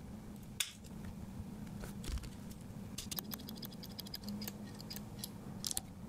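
Small metal clicks and ticks from a Victorinox Angler Swiss Army knife's tools being handled: one sharp click about half a second in, a quick run of small ticks about three seconds in, and a few more clicks near the end.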